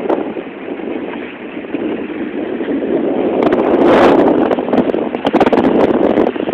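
Wind buffeting the microphone, a rough rushing noise that swells about four seconds in, with scattered crackling clicks.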